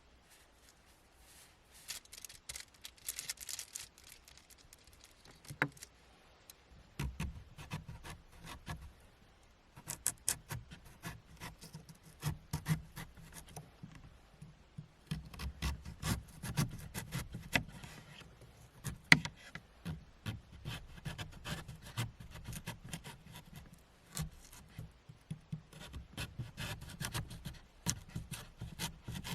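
Close handling noise: objects being rubbed, scraped and set down, with many small clicks. It is sparse for the first several seconds, then busier, with soft low thumps.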